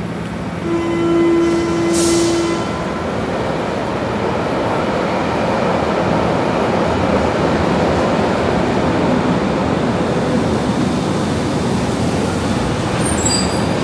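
Berlin U-Bahn yellow small-profile train at the platform: a steady two-second warning tone about a second in and a short hiss, then the train runs along the track with a continuous, even rumble of wheels and motors.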